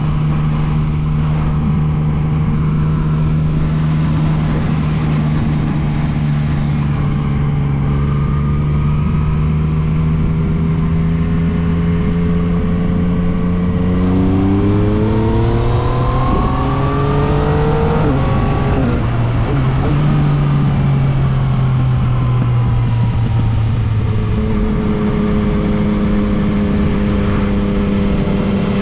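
Yamaha MT-09 three-cylinder motorcycle engine running at a steady pace, climbing in pitch about halfway through as it accelerates, then settling back to a steady note and dropping lower again near the end.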